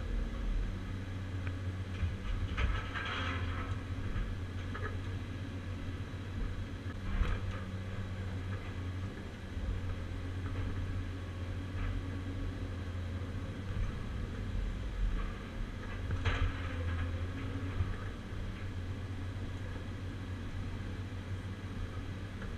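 Caterpillar 345C demolition excavator's diesel engine and hydraulics running steadily, heard from inside the cab, with short bursts of brighter noise three times as the Atlas Copco CC 4700 shear works scrap metal.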